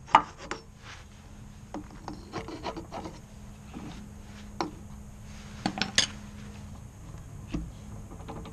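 Hammer tapping on the inner CV joint of a Nissan LEAF drive axle to knock it out of the gearbox: about ten sharp metal knocks at uneven intervals, the loudest about six seconds in.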